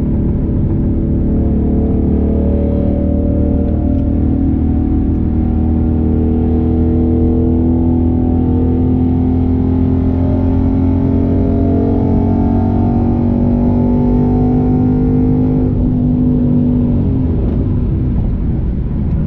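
Ford Mustang GT's 5.0-litre V8 pulling under load at a nearly steady engine speed, its pitch climbing slowly. About seventeen seconds in the pitch drops away as the engine comes off the throttle.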